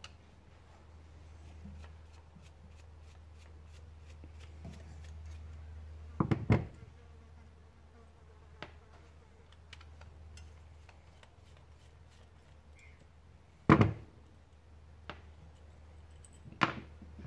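Tools and small metal parts handled while a part is taken off again: scattered light clicks and three louder clunks, about six, fourteen and seventeen seconds in, over a steady low hum.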